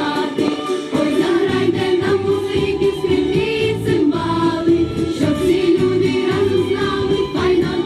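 Children's choir singing a Ukrainian folk song together over a steady musical accompaniment.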